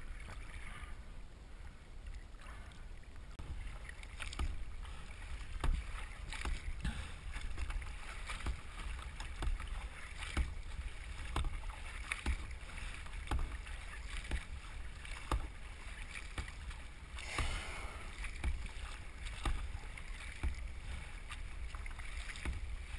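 Sea water lapping and slapping against a kayak's hull close to the camera, with a steady low rumble and small irregular knocks and splashes once or twice a second. A bigger splash comes about seventeen seconds in.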